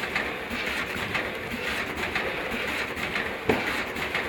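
JY-420AZ vertical form-fill-seal snack packing machine running, with a steady mechanical clatter that pulses rhythmically. One sharp knock comes about three and a half seconds in.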